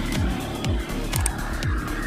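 Background music with a steady deep beat, about two beats a second.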